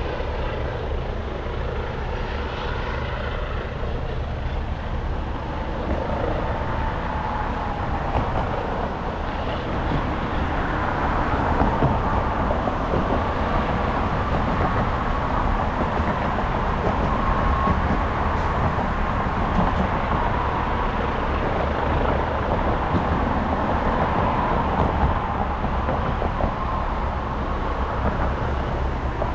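Steady vehicle-like mechanical rumble with a faint wavering whine that drifts in pitch, a little louder from about ten seconds in.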